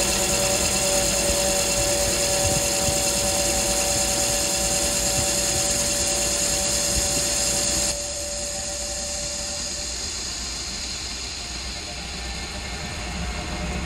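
Lathe taking a facing cut on a chrome-plated 1045 steel disc with a carbide insert: steady cutting hiss with a steady whine over the running lathe. About eight seconds in it drops suddenly to the quieter sound of the lathe spinning, the tool at the edge of the finished face.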